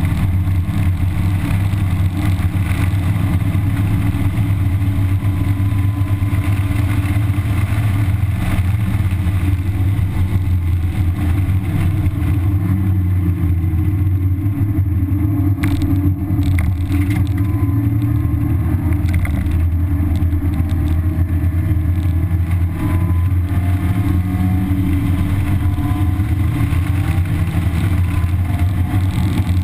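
1991 Mazda Miata's 1.6-litre four-cylinder engine, with stock exhaust, running hard at track speed, heard from inside the cabin over heavy road and wind rumble. The engine note shifts in pitch a few times through the lap.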